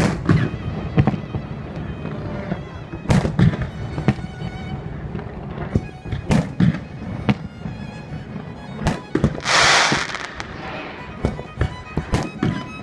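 Fireworks display: aerial shells bursting in a series of sharp bangs, with music playing throughout. About three-quarters of the way through, a loud hissing burst lasting under a second.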